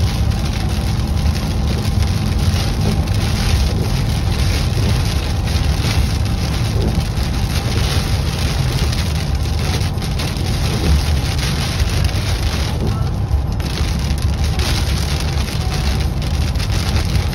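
Steady road and tyre noise inside a vehicle cabin driving on a rain-soaked highway, with heavy rain hitting the windshield and roof.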